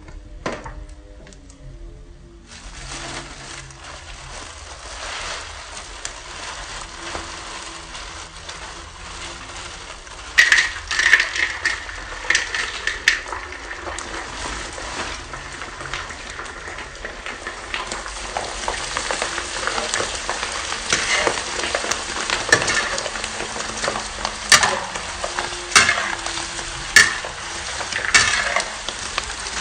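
Hot oil sizzling as kerupuk bawang crackers deep-fry in a wok. A metal spatula and slotted spoon scrape and clink against the pan. The sizzle grows louder from about ten seconds in.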